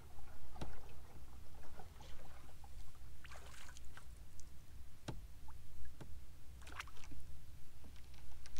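Push pole driving a flats skiff through shallow water, with a few sharp knocks of the pole against the boat and water splashing off the pole, over a low steady rumble. A brief splashy hiss comes a little past three seconds in.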